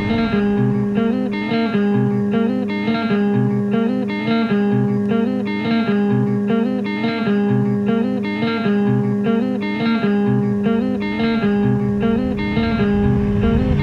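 Music: a minimal guitar piece, one short plucked guitar figure repeated over and over at an even pace above steady held low notes.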